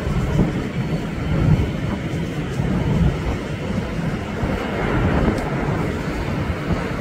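Airbus A380's four jet engines running on final approach to landing: a steady low rumble that swells and dips slightly.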